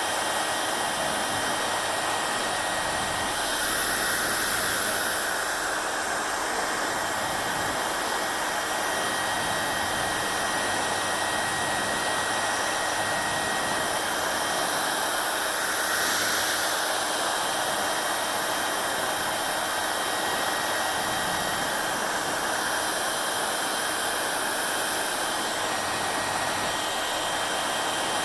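Hair dryer blowing: a steady rush of air with a faint steady whine from the motor. The air swells briefly twice, about four seconds in and again in the middle.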